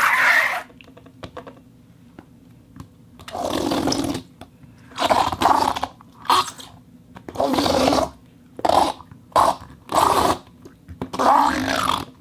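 Rubber half ball rubbing on a rosin-wetted rubber sheet on a turntable disc, making friction groans. A longer grinding rub stops just under a second in; after a pause come about eight short rubs, each under a second, with short gaps between them.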